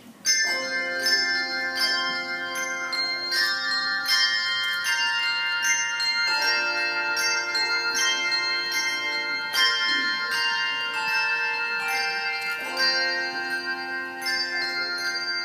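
Handbell choir playing a tune: bells struck in quick succession, each ringing on while others sound with it, so the notes overlap in changing chords. The playing starts suddenly a moment in.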